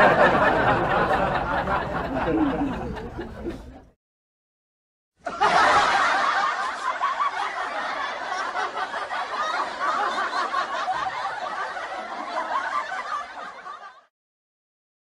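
Canned laughter sound effect: a crowd laughing, played twice, each time starting loud and fading out, with about a second of dead silence between.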